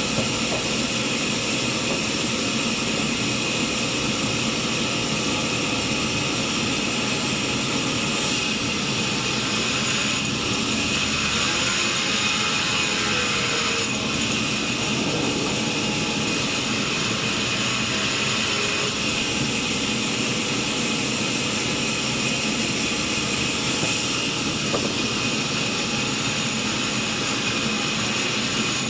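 Sawmill saw running steadily with a loud, continuous whine and rush, with slight shifts in tone every few seconds.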